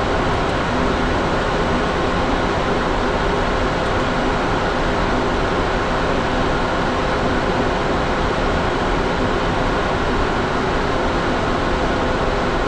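Steady cockpit noise of a business jet in the climb: an even rush of airflow and engine noise with a faint steady hum in it.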